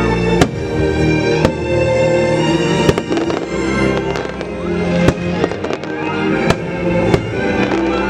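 Fireworks bursting, a sharp bang every second or so, over loud orchestral show music.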